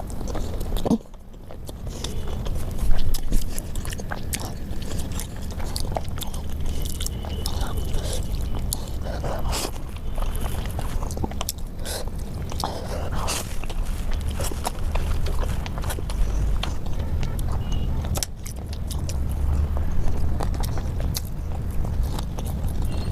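Close-miked chewing and biting of food, with many small clicks and crunches over a steady low rumble.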